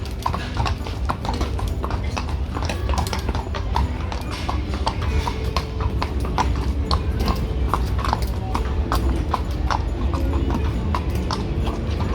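Horse's hooves clip-clopping in a steady run of hoofbeats, a few strikes a second, over a constant low rumble.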